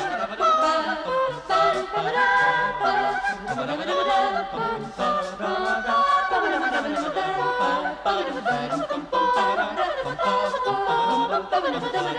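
Mixed-voice vocal ensemble singing a fugue in close harmony, several voice lines moving independently and overlapping.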